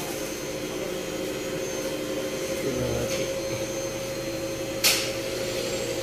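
A steady machine hum with a high tone, and a sharp knock a little under five seconds in.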